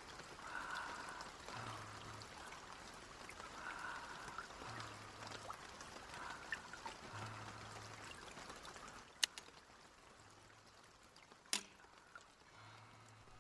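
Faint, even hiss with soft, brief tones that come back about every two and a half seconds, then two sharp clicks, about nine and eleven and a half seconds in.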